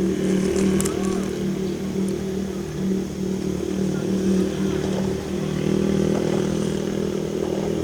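A small engine running steadily, a low, even drone.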